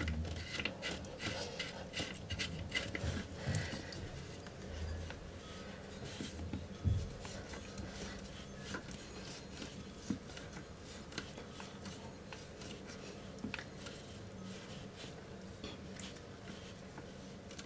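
Faint, scattered clicks, taps and light rubbing as plumbing parts are handled and fitted: a washer seated and a toilet supply connector's nut being fitted by hand. A faint steady hum sits underneath.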